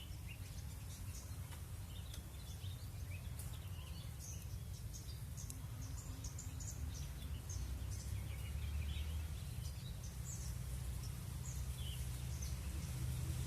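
A chorus of small wild birds chirping and twittering, many short high calls overlapping throughout, over a steady low rumble.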